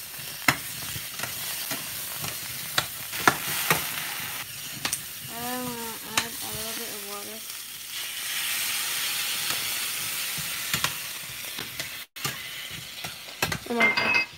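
Vegetables sizzling in a hot stainless steel frying pan as they are stirred, a metal utensil clicking and scraping against the pan. The sizzle swells louder for a few seconds past the middle.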